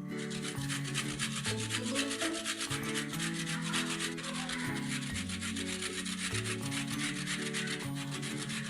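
Mozzarella cheese rubbed over a hand grater in quick repeated strokes, over background music with a slow low melody.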